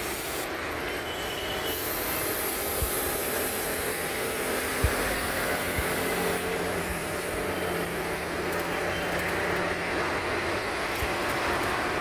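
Steady drone of road traffic, with a few short knocks.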